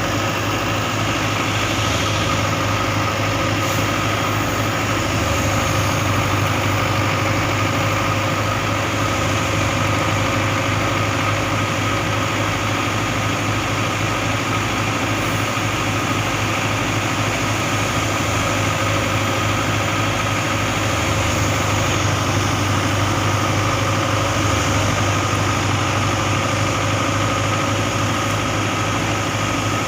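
Engine of harvesting farm machinery running steadily at constant speed, a low even hum with a steady whine above it.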